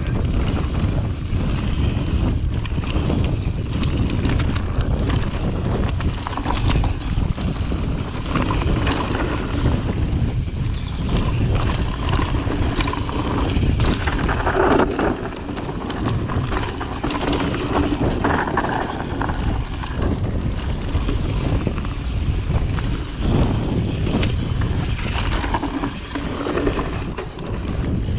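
Mountain bike riding over dirt singletrack: wind buffeting the action-camera microphone, with the tyres rolling over dirt and stones and the bike giving many small rattles and knocks.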